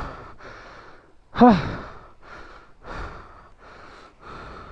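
A person breathing hard in rapid, heavy breaths, with one short grunt that falls in pitch about one and a half seconds in. This is the panting of someone straining with physical effort.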